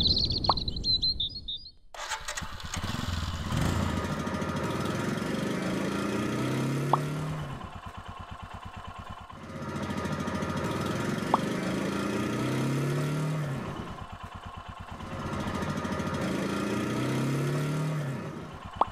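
Motorcycle engine revved three times, each rev climbing and easing off, dropping back to a lumpy idle in between.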